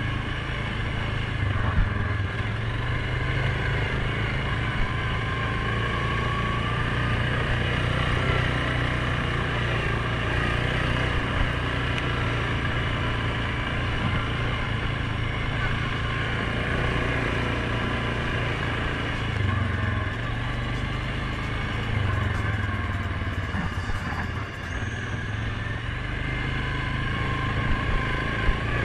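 2019 Suzuki KingQuad 750 ATV's single-cylinder engine running steadily as the quad rides along a dirt trail, with a few brief knocks.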